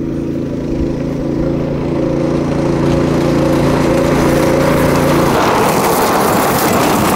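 Small go-kart engine held at full throttle, its pitch steady at the governed top speed (about 22 mph) while it grows louder as the kart approaches. About five seconds in, the kart comes close and the sound turns into a rougher, noisier rush.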